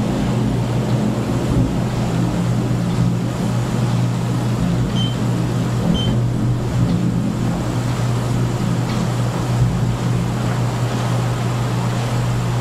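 Thunder rumbling steadily during a passing storm, with a hiss and faint crackles. Two short high beeps sound about five and six seconds in.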